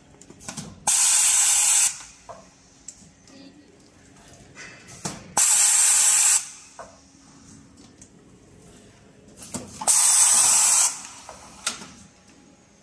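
Automatic tray vacuum sealing machine letting out three loud hisses of rushing air, each about a second long and about four and a half seconds apart, one per sealing cycle. Light clicks and knocks of the mechanism sound between them.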